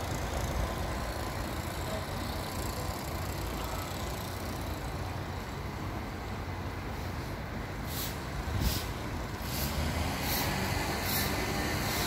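Steady hiss of light rain in the forest, with a low rumble under it. About eight seconds in, a short high-pitched pulse starts repeating about one and a half times a second.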